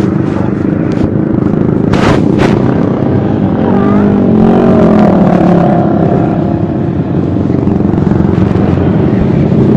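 Big motorcycle running on the move, a loud, steady low engine and road noise, with two sharp clicks about two seconds in.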